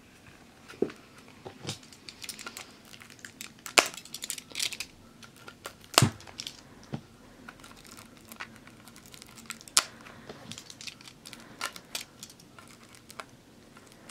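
Plastic shrink-wrap on a trading-card box crinkling and crackling as fingers handle it and pick at it, with irregular sharp crackles, the loudest about four and six seconds in.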